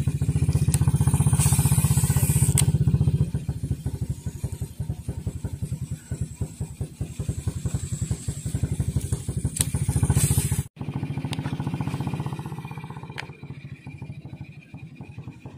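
Small boat engine running with a fast, even putter, loudest for the first three seconds and then quieter. The sound breaks off for an instant about eleven seconds in and carries on more softly.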